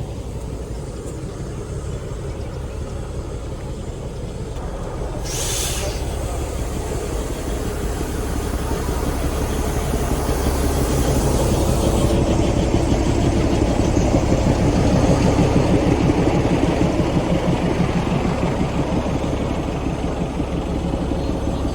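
Darjeeling Himalayan Railway toy train running, a steady low rumble with a fast rhythmic clatter that grows louder through the middle, and a short hiss about five seconds in.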